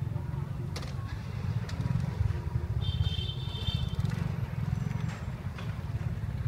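Steady low rumble of outdoor street background noise, with a few light clicks and a brief high-pitched tone about three seconds in.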